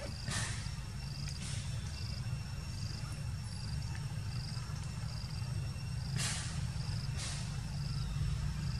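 Forest ambience: an insect chirping high and faint about every half second over a steady low rumble, with a few short bursts of noise.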